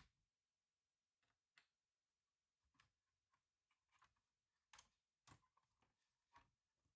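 Faint, irregular small clicks and taps from laptop parts and tools being handled during disassembly, a few louder clicks just after the middle.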